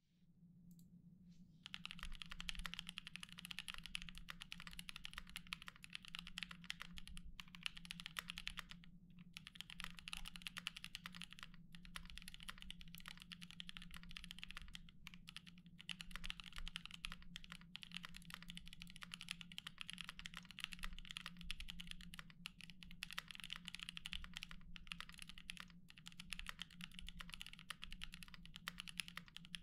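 Continuous typing on a Kei R1 mechanical keyboard with lubed Gazzew Boba LT tactile switches, GMK keycaps and an aluminium full plate: a dense run of keystroke clacks that starts about two seconds in, with brief pauses. A faint steady low hum sits underneath.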